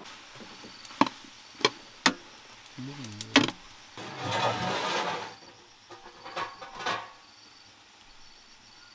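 Steel ladle stir-frying chicken gizzards with onion and chili in a large metal pan: several sharp clinks of the ladle against the pan, a rush of sizzling and scraping about four seconds in, and more clinks and scraping a little later.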